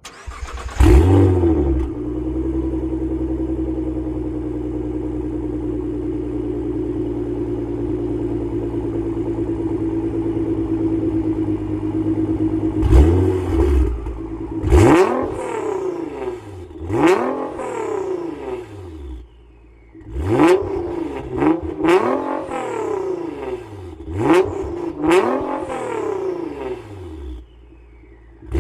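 Nissan GT-R R35's twin-turbo 3.8-litre V6 starting up through a custom 4-inch valved exhaust with Quadzilla front pipe: it catches with a quick rev flare, then settles to a steady idle. About thirteen seconds in come short throttle blips, around nine of them, each rev climbing and falling away quickly, with the engine dropping back to idle between them.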